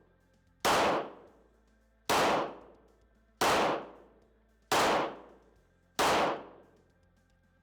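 Five pistol shots fired slowly and evenly, about one every 1.3 seconds, each ringing off in the echo of an indoor range: deliberate single aimed shots of an anti-flinch drill.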